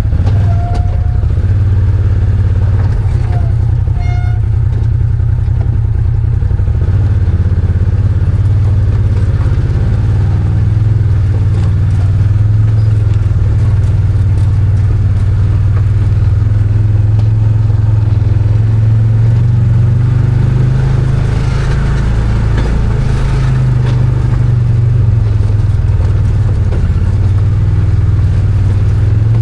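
Arctic Cat Wildcat 1000 side-by-side's V-twin engine running at a fairly even speed while driving, its pitch drifting only slightly.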